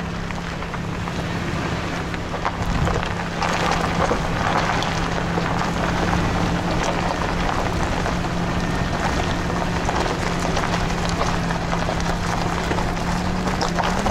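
Van driving over a gravel track: tyres crackling on loose stones with wind on the microphone and a steady low engine hum, growing louder about three and a half seconds in.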